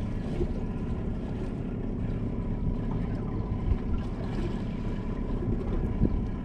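Steady low rumble of a fishing boat's motor idling, with wind buffeting the microphone.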